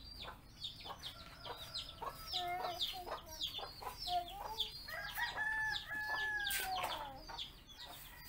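Chickens: continual short, high peeping calls several times a second mixed with clucks, and a rooster crowing once, a long held call from about five seconds in that falls away at its end.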